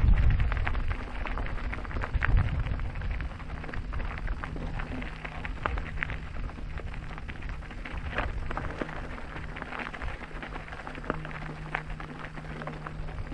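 Ride noise from an e-mountain bike on the move: wind buffeting the microphone, strongest in the first two or three seconds, over a crackle of small clicks from the tyres and bike, with a steady low hum from about four seconds in.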